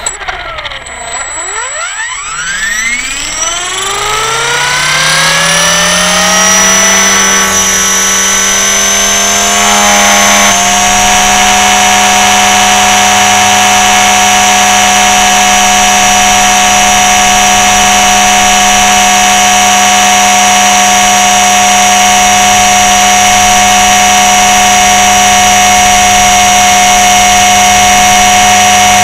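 Blade 300 X electric RC helicopter's brushless motor and rotor head spooling up from rest: a whine that rises in pitch over the first six seconds or so, steps up slightly about ten seconds in, then holds steady as the helicopter lifts off and flies. Heard very close, from a camera mounted underneath the helicopter.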